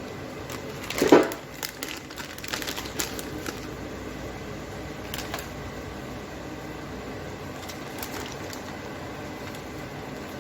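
Kitchen handling noises during food preparation: a short, loud clatter about a second in, then a couple of seconds of crinkling and light clicks, over a steady background hiss.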